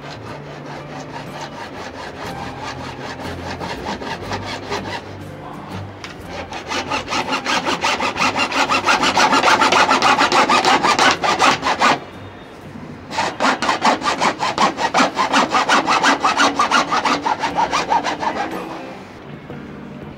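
Hacksaw cutting through a white PVC drainpipe in quick, even back-and-forth strokes, light at first and then louder as the cut deepens. It breaks off briefly about two-thirds of the way through, resumes, and stops shortly before the end as the pipe is cut in two.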